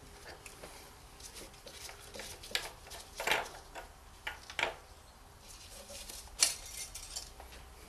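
Oil filler cap being unscrewed and lifted off the engine's cam cover by hand, with pliers nearby: scattered light clicks and a few sharper clinks, the loudest about three seconds in, and a short scrape a little after halfway.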